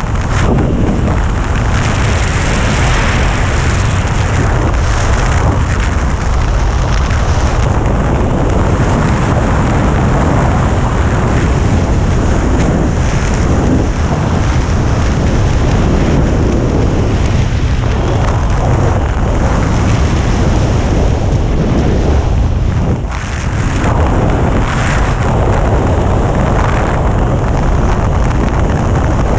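Wind rushing over the microphone of a head-mounted action camera as a skydiver flies under an open parachute: a loud, steady rush that eases briefly about two-thirds of the way through.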